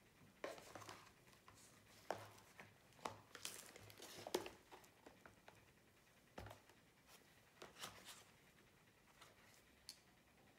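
Faint, scattered clicks and rustles of coloured pencils being handled: pencils knocked against each other as they are put back into and drawn out of a pencil case.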